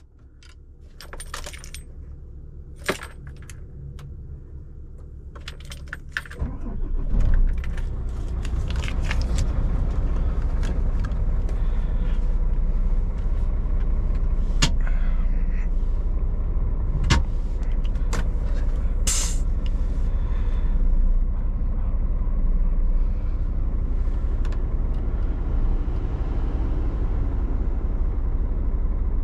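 Scania S500 truck's diesel engine starting about six seconds in, then idling steadily, with scattered clicks and rattles around it.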